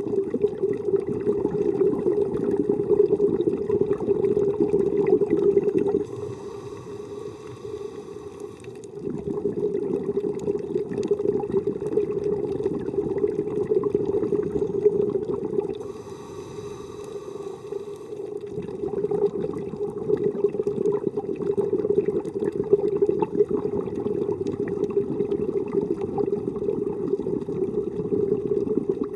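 Scuba diver breathing through a regulator underwater. Long stretches of exhaled bubbles are twice broken by a quieter, hissing inhalation, about six and sixteen seconds in.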